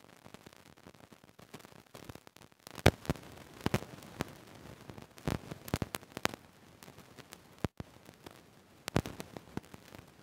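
A dozen or so sharp, scattered clicks and taps over a faint steady hiss, the loudest a little under three seconds in.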